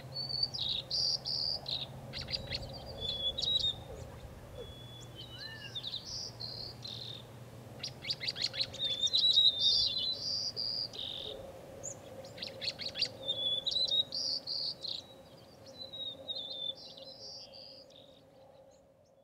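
Birds singing: varied whistled phrases and repeated notes, broken by several fast rattling runs, over a faint low hum that dies away in the first half. It all fades out near the end.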